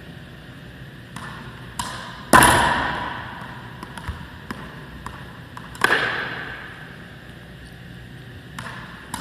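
Racquetball backhand hits: two loud, sharp cracks of the racket striking the ball, about three and a half seconds apart, each ringing on in the echo of the enclosed court. Lighter taps of the ball bouncing on the wooden floor come before each hit.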